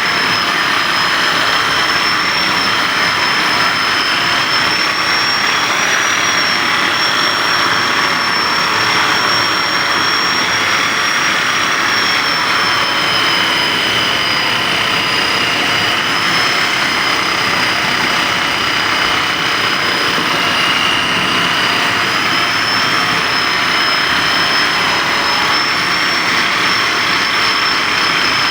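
A small high-speed electric motor running steadily, giving a loud hiss with a high whine that drifts slightly up and down in pitch.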